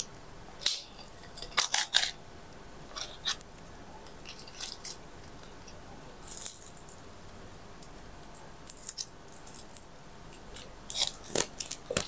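Plastic raffia string and a cut strip of plastic bottle crinkling and ticking in the hands as the string is knotted onto the strip: a run of short, irregular crisp rustles.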